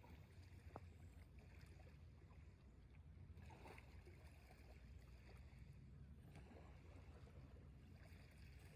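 Near silence: a faint, steady low rumble of background ambience, with a few faint ticks.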